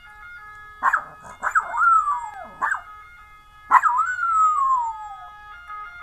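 Yorkshire terrier howling in imitation of an ambulance siren: yelping howls that start high and slide down in pitch, a cluster of short ones about a second in and a longer falling howl lasting about a second and a half near the middle.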